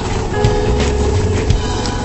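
Background music with held notes over a pulsing bass beat.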